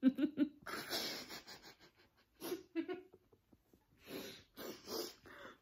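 Two people laughing, stifled behind their hands: three quick pitched laughs at the start, then breathy, wheezy bursts of laughter with short gaps between them.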